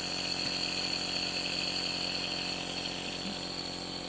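Nebulizer's electric compressor running with a steady buzz, pumping air to turn the liquid medicine into mist for a face mask.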